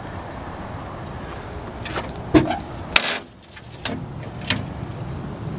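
A few sharp metal clicks and knocks about halfway through, the loudest two about half a second apart, as the hood of a 1956 Dodge pickup is unlatched and swung open, over a steady low background.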